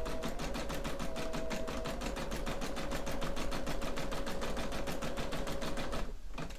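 Brother computerized embroidery machine stitching a pre-programmed design by itself: a fast, even run of needle strokes over a steady motor hum. It stops suddenly about six seconds in, as the design is finished.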